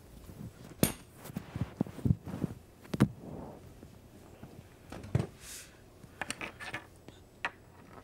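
Bedding rustling and knocks against a worn clip-on microphone as a man turns over under a duvet: a scatter of sharp taps and thumps in two clusters.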